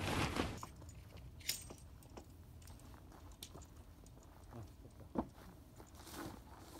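Tent being pitched: a brief rustle of tent fabric, then faint, scattered light clicks and clinks as the poles are handled and fitted.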